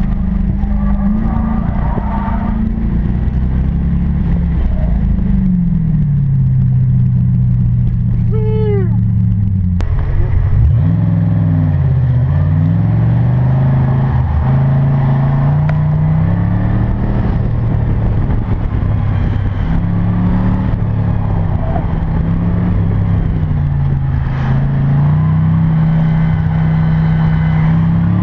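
1992 Chevrolet Corvette's V8 on an autocross run, its revs climbing and dropping again and again as the car accelerates and lifts between the cones. A short high squeal comes about eight seconds in.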